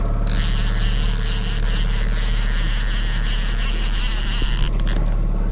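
Fishing reel's drag buzzing steadily as a hooked salmon pulls line, stopping abruptly near the end, over the steady low hum of the boat's outboard motor.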